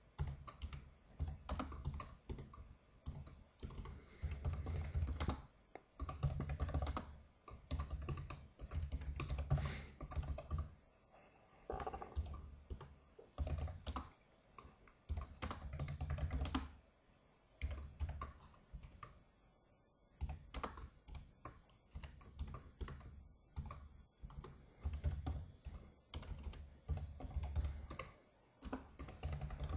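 Typing on a computer keyboard: quick runs of keystroke clicks with a low thud under them, broken by short pauses, the longest about eleven and eighteen seconds in.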